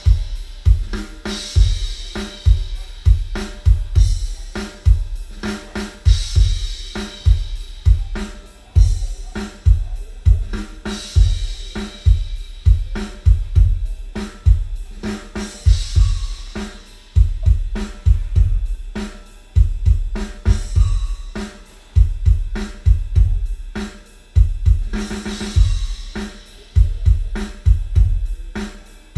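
Drum-heavy music played back through a Yamaha NS-SW700 subwoofer for a bass test: a steady beat of heavy, deep kick-drum hits with snare and cymbals above.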